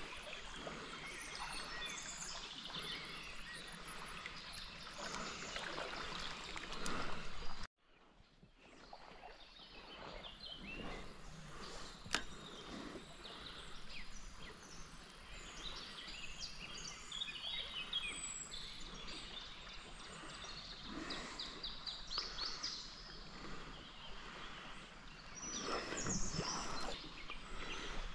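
Riverside ambience: flowing river water with small birds chirping over it. The sound cuts out suddenly about eight seconds in and fades back up.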